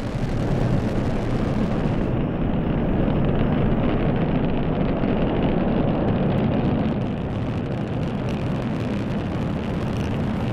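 Delta IV Heavy rocket's three RS-68 engines at full thrust just after liftoff: a loud, steady, deep rumble that eases slightly about seven seconds in.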